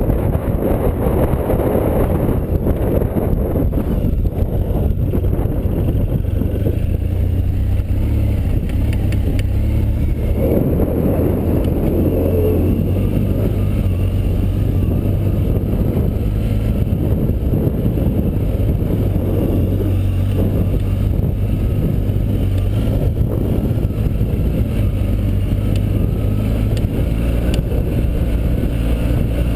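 Large adventure-touring motorcycle's engine running steadily while riding over dirt tracks, with wind rushing over the microphone.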